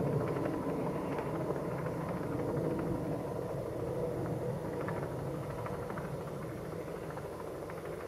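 Glider launch winch engine running under load as it hauls the glider up on its cable: a steady rough rumble that slowly grows quieter.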